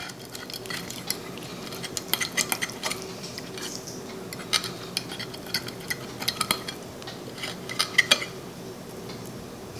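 Metal fork cutting through smoked chuck roast, its edge repeatedly clicking and scraping against a ceramic dinner plate in many short, irregular clinks.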